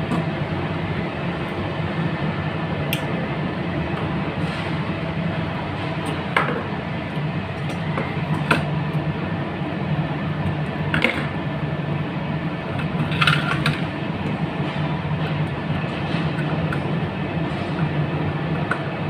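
Light clicks and knocks from handling a sheet-metal push-button plate and its buttons and wires, about five of them spread over the stretch, over a steady low hum.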